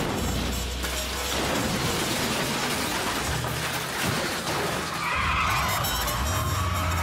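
Action-movie soundtrack: music over the crashing and shattering of a car explosion, with wreckage falling through the fireball.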